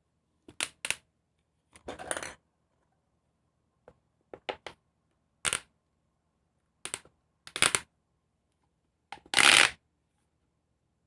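Plastic fidget toys, pop tubes and pop-its, being popped and stretched: a series of sharp pops and short crackling rasps at irregular intervals, with a quick run of three pops about halfway and the loudest, longest rasp near the end.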